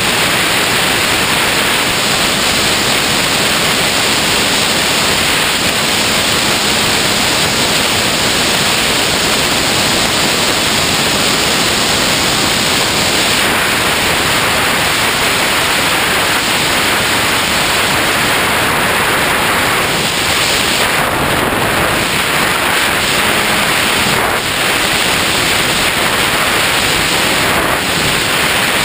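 Steady loud rush of wind noise on the microphone of a GoPro carried by a Skywalker X5 flying wing in flight.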